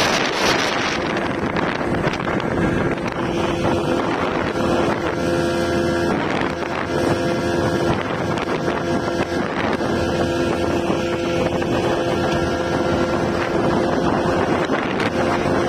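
Inflatable speedboat's motor running at a steady pitch while under way, with wind buffeting the microphone.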